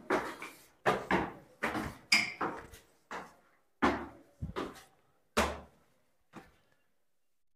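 Footsteps climbing a stone staircase: a string of uneven thuds, about two a second, that stop about two seconds before the end.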